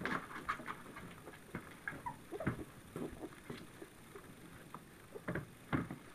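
Litter of 26-day-old puppies eating solid food together: irregular wet smacking, slurping and chewing clicks, with a few brief squeaks, the same noises they make when they nurse.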